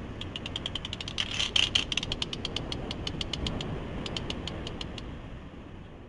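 A rapid train of sharp, high clicks close to the microphone, about seven a second, bunching into a louder, denser burst about a second and a half in, then stopping about five seconds in; its source is unidentified.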